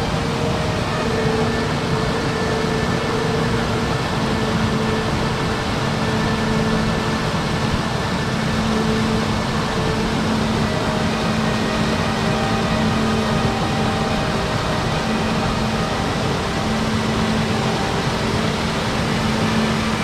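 Waterfall cascading over rocks: a steady, even rush of falling water, with faint sustained tones that fade in and out underneath.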